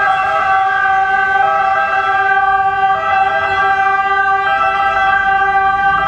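Two-tone siren of a Mercedes-Benz Actros fire engine on an emergency run, stepping between a higher and a lower pitch about every one and a half seconds.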